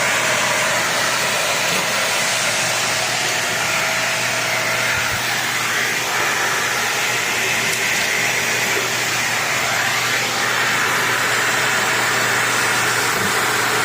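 Dyson Ball Multi Floor 2 upright vacuum cleaner running steadily, an even rushing whoosh of suction with a low hum underneath.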